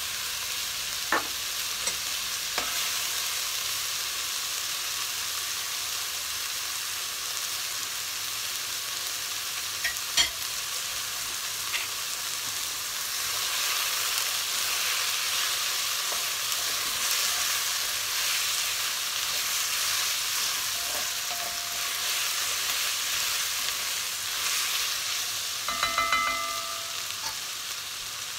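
Chopped onion, sweet pepper, spring onion, thyme, garlic and ginger sizzling steadily in hot oil in an aluminium pot, while a spatula stirs them. A few sharp knocks of the spatula on the pot, and a brief ringing scrape near the end.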